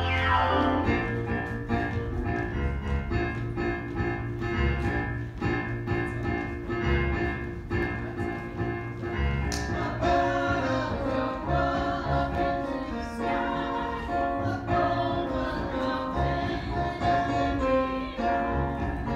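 Musical-theatre song: a group of voices singing with piano accompaniment over a steady beat.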